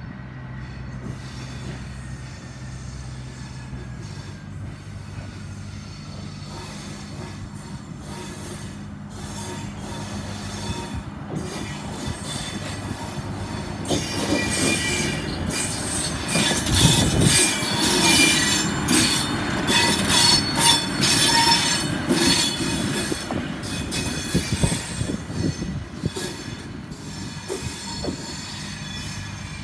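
South Australian Railways Bluebird diesel railcar approaching and passing. At first its diesel engine drones steadily. The sound grows loudest about halfway through, with the wheels squealing on the rails and many clicks, then eases as the railcar moves off.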